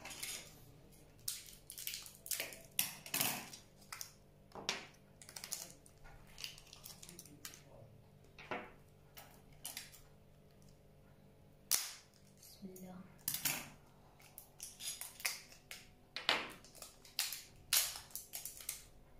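Plastic blister packs of AA batteries crackling and clicking as they are torn open and the batteries handled, in irregular sharp snaps with one louder snap about twelve seconds in.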